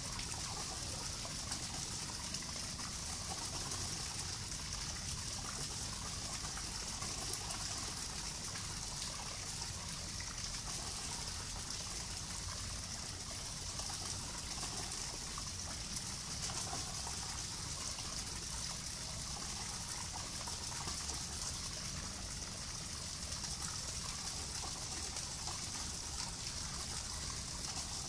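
Steady outdoor ambience: an even, unbroken hiss with a low rumble underneath, with no distinct events.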